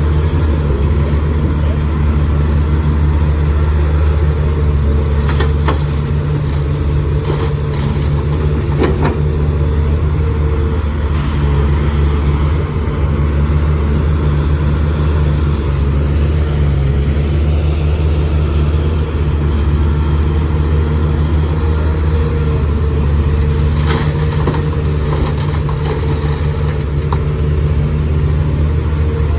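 Heavy diesel engine of earth-moving machinery running steadily with a deep, even drone, with a few sharp metallic knocks several seconds in and another near the end.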